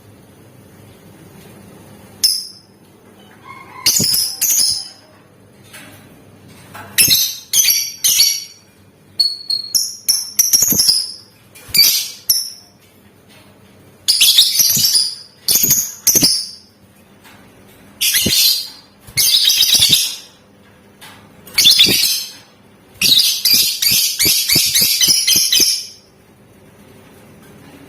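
Lovebird giving short bursts of shrill chattering calls about a second apart, then a continuous rapid rattling trill of about three seconds near the end: the long 'ngekek' song used as a bait recording to set other lovebirds singing.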